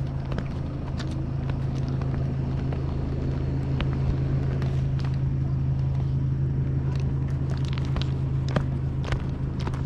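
An engine or motor running with a steady low hum, with scattered light clicks and knocks over it.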